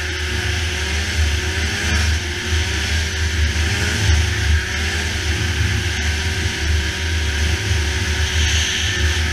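Polaris snowmobile engine running steadily while riding across open snow, its pitch rising and falling slightly, under a steady hiss of wind and track noise.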